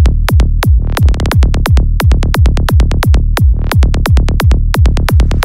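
Loud electronic dance music: a fast, steady beat of punchy electronic drum hits with falling-pitch tails over heavy deep bass.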